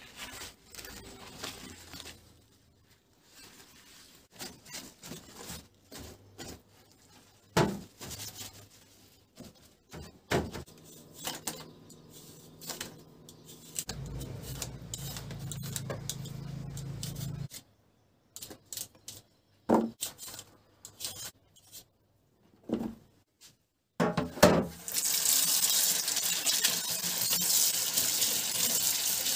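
Scattered knocks and rubbing of kitchen food prep, then near the end tap water running steadily into a stainless-steel sink as peeled potatoes are rinsed under it.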